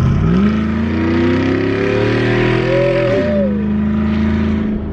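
Chevrolet Silverado's V6 engine under a hard launch, heard from inside the cab: the engine note climbs for about three seconds, then drops sharply and runs on steady at a lower pitch.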